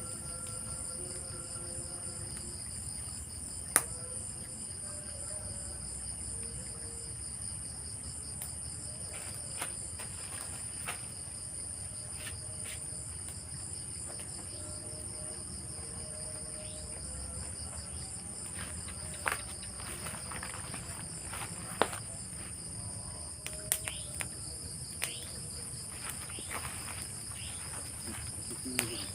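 Night chorus of crickets: a steady, finely pulsing high trill with a second, lower trill band beneath it. Scattered sharp clicks and taps break through several times, the loudest about four seconds in and again past twenty seconds.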